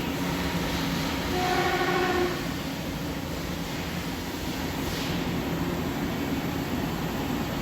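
Hankook Protec 7NA CNC lathe running with a steady machining noise, and a brief pitched squeal about a second and a half in that lasts under a second.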